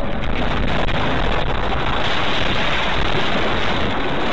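Loud, steady rushing and rumbling of a car running off the road onto the verge and into dry grass and scrub, heard through the dashcam's microphone; it swells in the middle.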